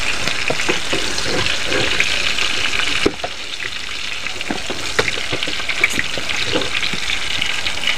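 Potato and pointed gourd pieces sizzling in hot oil in a non-stick pan while a slotted spatula scrapes and lifts them out, with scattered light knocks of the spatula against the pan. The sizzle eases a little about three seconds in.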